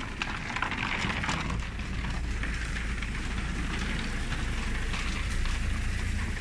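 Steady hiss and fine patter of light rain on wet street paving, over a constant low rumble.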